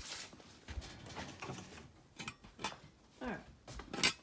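Clatter of hard objects being handled: a run of small clicks and knocks, with one loud sharp knock about four seconds in.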